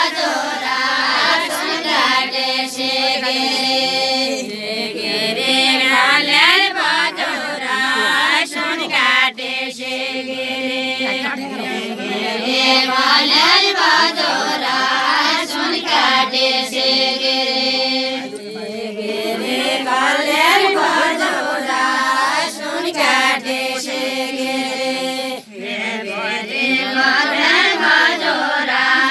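A group of women singing a Deuda folk song together, unaccompanied, in long drawn-out phrases of held and sliding notes, with short breaks between phrases.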